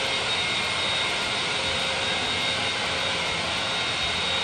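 Vacuum cleaner running at full power: a loud, steady hiss with a high motor whine.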